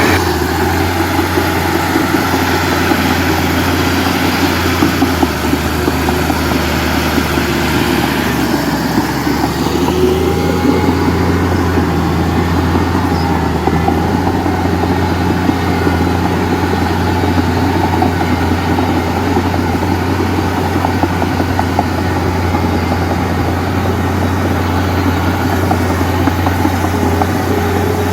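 Heavy diesel machinery engine running steadily, a constant low drone with a dense rattling noise above it and a few higher tones that slide in pitch near the start and around ten seconds in.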